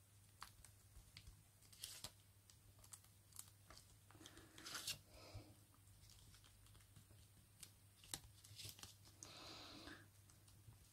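Faint rustling and crinkling of paper as a sheet is folded over and pressed flat by hand, with scattered soft ticks and two brief, slightly louder rustles about four and nine seconds in.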